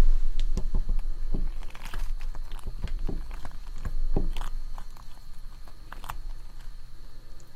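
Close-miked eating: bites and chewing with scattered wet clicks and crackles, over a low rumble that is strongest at the start.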